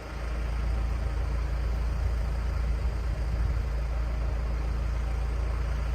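John Deere backhoe's engine running steadily, a constant low hum.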